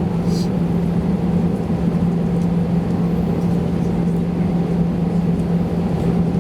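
Steady cabin noise inside an Airbus A320-200 near the rear: jet engines and cabin air running with an even drone and a steady low hum, the aircraft on the ground before its takeoff.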